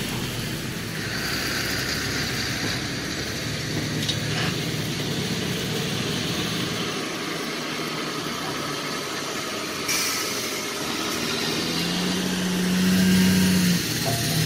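Heavy 4×4 borewell rig truck's diesel engine running as it drives off-road over rough dry ground. The engine note rises and grows louder near the end, then eases off.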